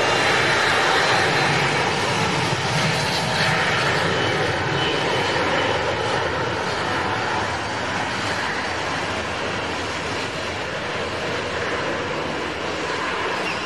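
Airbus A330-900neo's turbofan engines running as the airliner moves past: a steady jet-engine rush with a faint whine, slowly getting fainter as it moves away.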